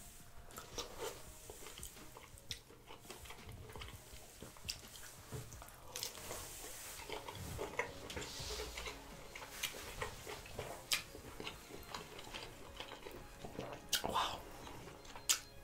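Close-up mouth sounds of biting and chewing sauce-coated shrimp: wet smacks and clicks, with the loudest clicks near the end.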